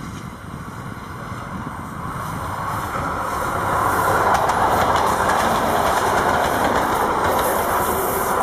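A train of two M262 diesel railcars with a trailer car passing close by. It grows louder about three to four seconds in as it draws level, and the wheels clatter over the rail joints.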